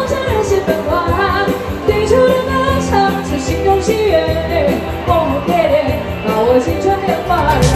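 Music: a Mandarin pop song sung over band accompaniment with a steady beat.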